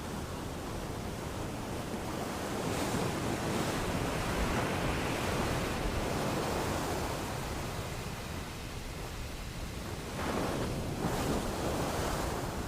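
Ocean waves breaking and washing on a shore: a continuous surf wash that swells with one long wave about two seconds in and another near the end.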